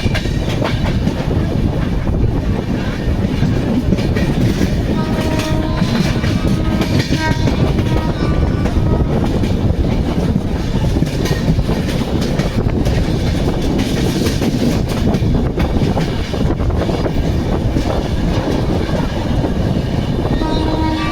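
Jammu Mail passenger train running along the track: a loud, steady rumble of wheels on rails with clickety-clack, a few brief high tones around the middle, and the train horn starting to sound near the end.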